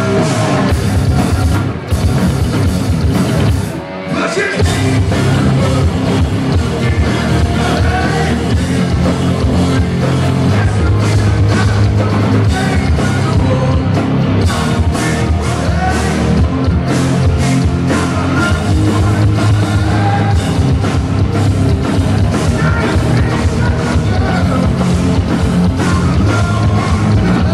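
Live hard rock band playing loud: distorted electric guitars, bass and drum kit, with a man singing lead. The sound drops briefly about four seconds in, then the full band comes back in.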